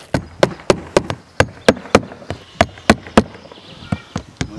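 Claw hammer driving roofing nails through bitumen shingles, with sharp strikes at about three a second.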